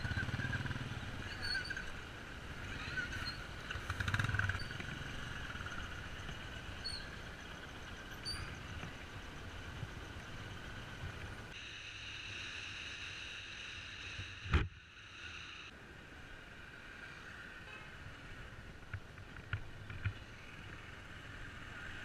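Bajaj Pulsar motorcycle riding along a road, its engine and road noise heard from the bike-mounted camera, with a single sharp knock about two-thirds of the way through.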